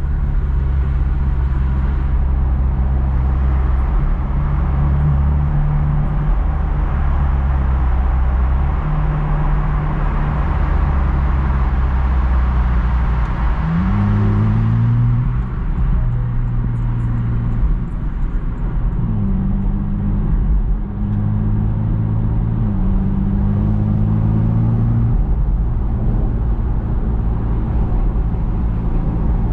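Porsche 718 Boxster GTS 4.0's naturally aspirated 4.0-litre flat-six running on the road. It holds a steady note for stretches, and its pitch climbs under acceleration near the middle and twice more a few seconds later.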